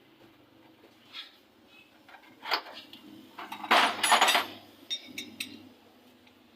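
Metal tools and engine parts clinking and knocking as they are handled, with a louder rattling clatter a little after halfway and light ticks near the end.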